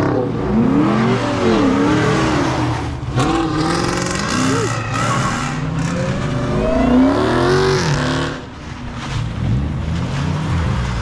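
Dodge (Mopar) muscle car engines revved hard, pitch climbing and dropping several times, with tires spinning and squealing in a burnout that leaves tire smoke. The sound eases briefly a little past the middle, then the revving picks up again.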